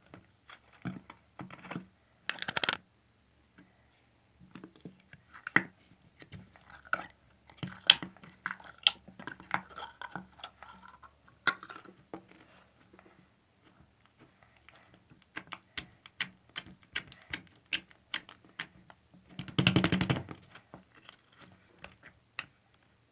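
Slime being squeezed and poked by hand, making many small sharp clicks and pops. Two louder crackling squishes stand out, a short one about two seconds in and a longer one near the end.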